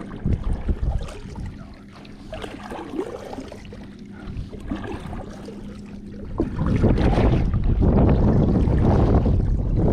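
Wind buffeting the microphone, a low rushing rumble that swells loud about six and a half seconds in. Before that, a steady low hum with a few small knocks.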